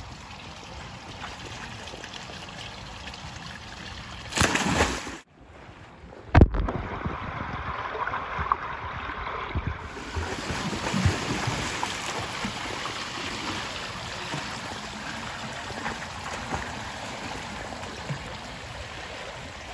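A swimmer jumping into a pool, with a loud splash about four to six seconds in, then a few seconds of muffled water sound. After that comes steady, irregular splashing from swimming strokes.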